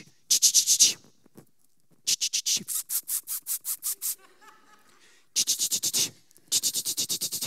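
A man making rapid hissing 'tss-tss' mouth sounds into a headset microphone, mimicking a marker scribbling on a whiteboard: four runs of quick strokes, about six to eight a second, with short pauses between them.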